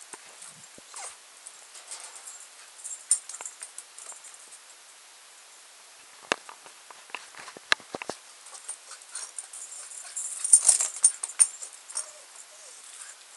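Jagdterrier moving about close to the microphone: scattered sharp clicks, with a burst of rustling about ten and a half seconds in.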